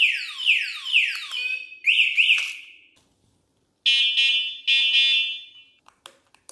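DYU S2 electric bike's built-in anti-theft alarm sounding: the alarm that goes off when the locked bike is moved. A repeating falling electronic whoop, about two a second, stops about a second and a half in and is followed by two quick chirps. After a short silence, two longer steady electronic beeps follow.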